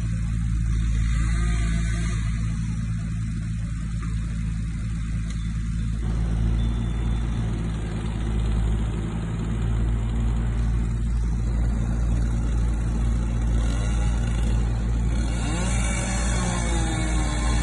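Large engine running steadily with a deep, even drone, typical of the heavy machinery used in tree removal.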